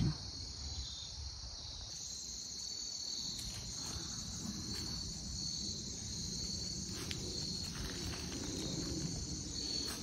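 Insects trilling in a steady, high-pitched chorus.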